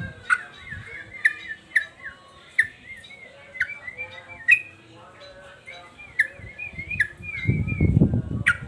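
Male yellow-vented bulbul (trucukan) singing: sharp chirps and quick wavering whistled phrases, repeated over and over. A louder, low, rough sound comes in near the end.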